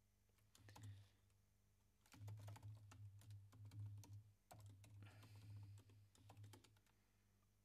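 Faint typing on a computer keyboard: a few key clicks about half a second in, then a longer run of typing from about two seconds in until near the end.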